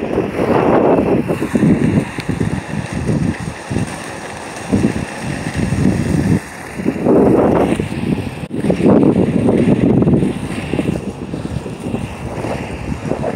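Wind buffeting the microphone in surges, over the steady rumble of in-line skate wheels rolling on rough asphalt.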